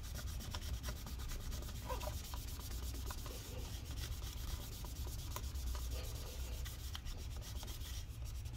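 Paper towel damp with rubbing alcohol rubbed back and forth over the aluminium battery tray of a 13-inch MacBook Pro, wiping off leftover battery adhesive residue, a steady scrubbing.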